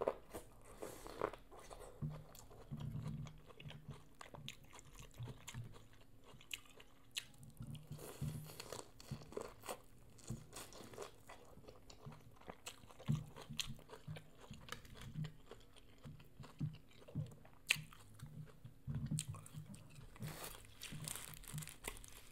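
Close-miked chewing and biting of corn on the cob: crunchy bites and wet mouth sounds that come and go in short bursts.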